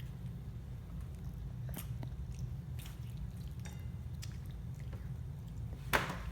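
Chewing while eating: faint wet clicks scattered over a steady low hum, with one louder click shortly before the end.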